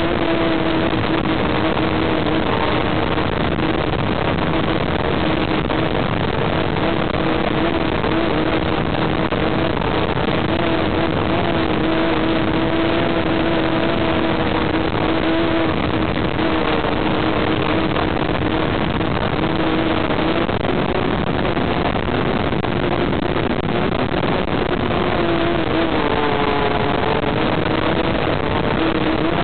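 RC model airplane's motor and propeller droning steadily, picked up by the onboard camera under heavy wind rush. The drone shifts pitch a little near the end.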